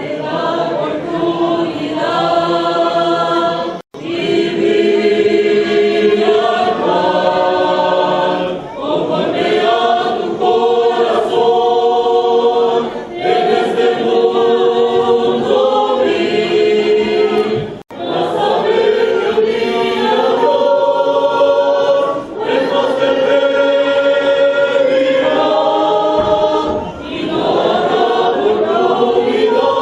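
A youth choir singing a hymn together, in sustained phrases of a few seconds each with short breaths between them.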